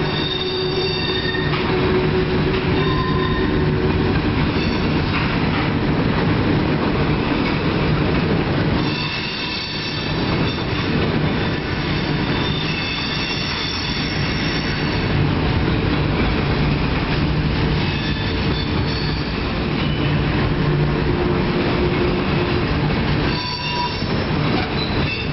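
Freight train's tank cars and covered hopper cars rolling past on the rails: a steady wheel rumble with intermittent high-pitched squeals from the wheels. The rumble eases briefly twice, about nine seconds in and near the end.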